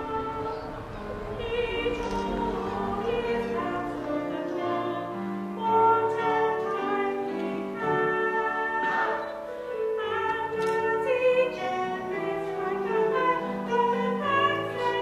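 Several women singing together in harmony in a classical, operatic style, moving through a melody of long held notes.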